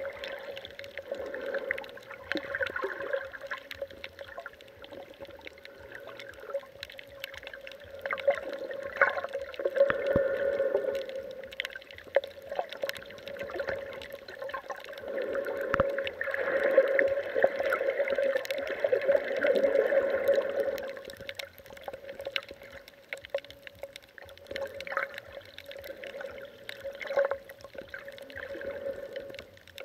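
Muffled underwater water sounds through a waterproof camera housing: sloshing and gurgling that swell and fade every few seconds, over a steady hum.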